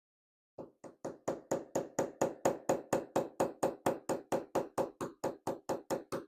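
A steady run of light, evenly spaced taps, about four a second, on a cam lock being taken apart, starting about half a second in.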